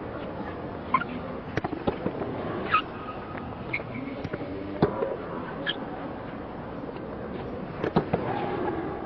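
Tennis balls struck by rackets in a rally: sharp pops at irregular intervals of about a second or two, over a steady background hum of the court.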